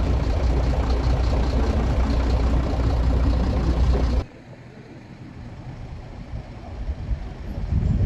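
Steady running of an engine, loud and low, cutting off abruptly about four seconds in to a quieter background hum that swells again near the end.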